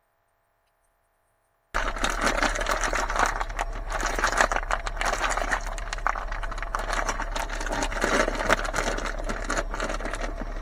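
Lidded pot of water heating on a single-burner camping stove: a steady dense hiss with fine crackling as the water comes toward the boil, with a low hum underneath. It starts abruptly about two seconds in, after a moment of silence.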